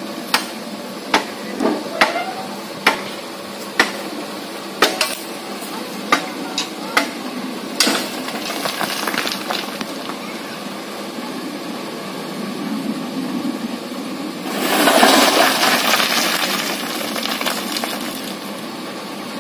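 Shovels and hoes scraping and knocking on a dump truck's bed as fill soil and stones are dug off it by hand, with sharp knocks about once a second over the first several seconds. About three-quarters of the way in, a louder rushing noise swells for about three seconds.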